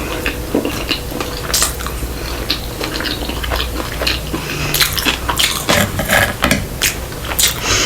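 Close-miked eating sounds of sushi: mouth sounds of chewing and irregular clicks of utensils against a plate or tray, busier in the second half.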